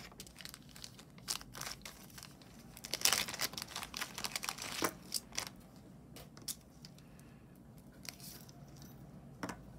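Small plastic jewelry bags crinkling and rustling as they are handled and opened, with scattered light clicks and taps.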